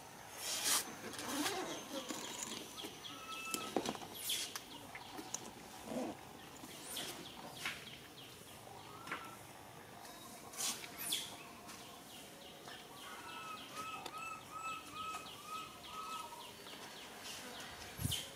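Outdoor ambience of birds calling, with a wavering, warbling run of notes about fourteen seconds in, over scattered short clicks and rustles.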